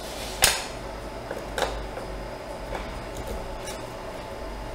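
Sharp clicks and light knocks of plastic bearing mounts with metal bearings being set down and shifted on an aluminium plate: a loud one about half a second in, another near a second and a half, then a few softer taps, over a steady low hum.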